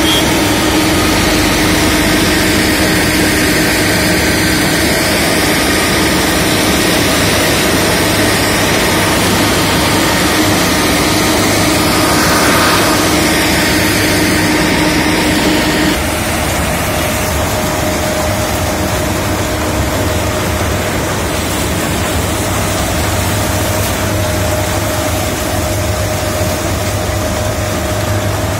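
Sugarcane harvester running steadily as it cuts and feeds standing cane: a loud, continuous engine drone with a steady hum over it. The tone shifts slightly and the level drops a little a bit past halfway through.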